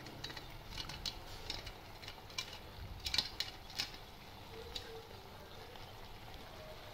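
Cheese being grated by hand over pasta: a quick, irregular run of short scraping strokes on a grater, which thin out after about four seconds.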